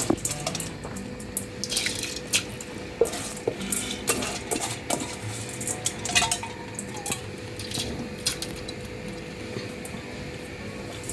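Metal utensil clinking, knocking and scraping against a cooking pot while rice goes into boiling water and is stirred. The knocks are frequent for the first seven seconds or so, then thin out, over a steady faint hum.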